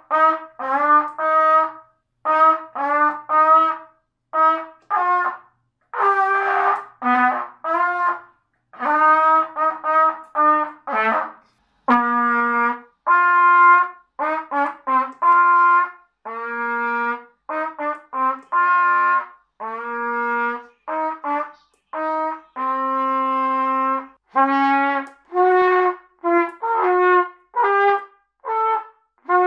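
A beginner trumpeter, only days into learning, playing simple solo melodies on a trumpet. The notes are tongued one at a time with short gaps between them, and several longer held notes come in the middle.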